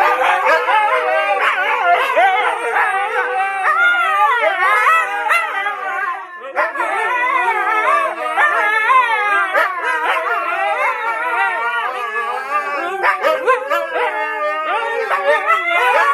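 Four huskies howling together, several wavering voices overlapping and gliding up and down in pitch, with some yips, and a brief lull about six seconds in.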